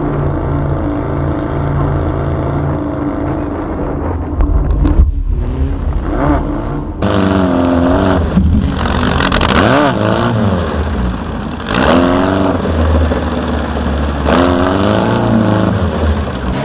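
Air-cooled Volkswagen flat-four engine under load, its revs rising and falling again and again.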